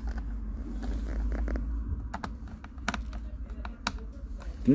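A small screwdriver turning a screw into the plastic bottom case of a Lenovo ThinkPad X220 laptop: scattered light clicks and taps, with three sharper clicks in the second half.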